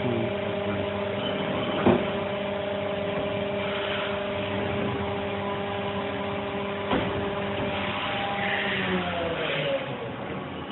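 Spindle of a 2011 Haas VF-2SS vertical machining center running with a steady hum of several tones, then slowing down with its pitch falling about nine seconds in. A sharp click about two seconds in, and a smaller one about seven seconds in.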